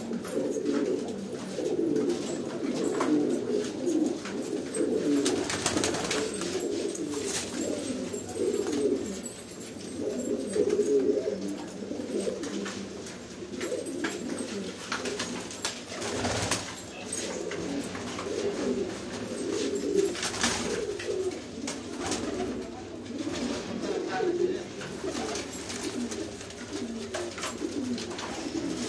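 Domestic pigeons cooing in a loft: many overlapping coos run on without a break, with a few brief clicks or rustles scattered through.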